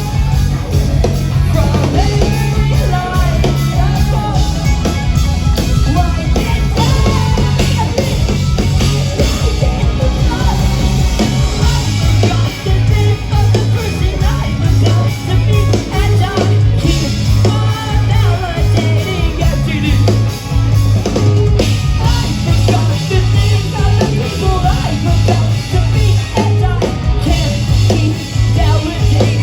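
Loud rock music with singing, over a heavy, steady bass line.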